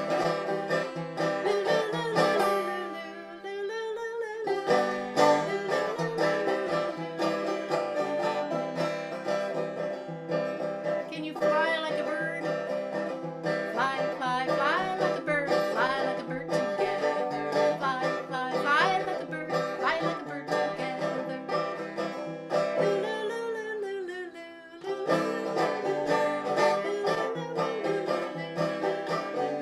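Music: a plucked string instrument picking a steady tune.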